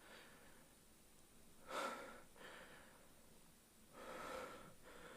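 A person's breath close to the microphone: two faint breathy sounds, one near the middle and a longer one near the end.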